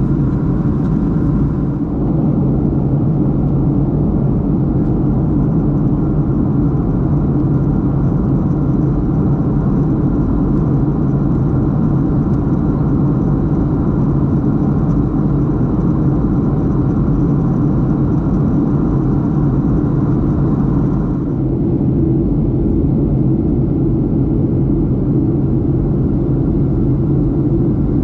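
Steady cabin drone inside a Boeing 737-800 in flight: a low rumble of engine and airflow noise. About three-quarters of the way through, the higher hiss drops a little.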